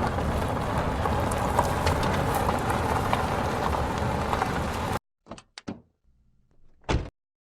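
Foley sound effects: a steady rushing noise with scattered ticks that cuts off abruptly about five seconds in, then three quick clicks, a faint low hum and a single louder knock near the end.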